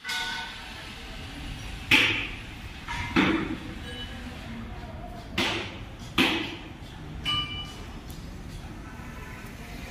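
Construction-site din: several sharp knocks and clanks, the loudest about two seconds in, some leaving a brief metallic ring, over a steady low background noise.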